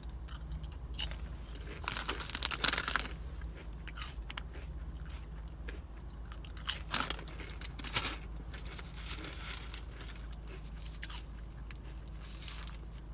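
Close-up crunching and chewing of Sun Chips multigrain chips, in bites of sharp crackly crunches, thickest about two to three seconds in and again around seven and eight seconds, over a steady low hum.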